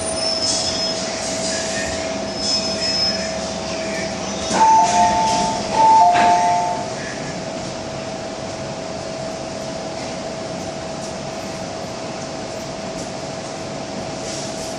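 MTR M-Train saloon doors opening at a station stop: the door chime sounds twice, a high note then a lower one each time, with knocks from the doors. A steady tone from the train runs underneath.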